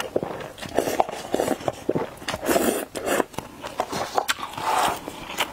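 Close-miked eating sounds of a person drinking broth from an instant-noodle cup, then chewing and swallowing: irregular wet mouth clicks, sips and gulps.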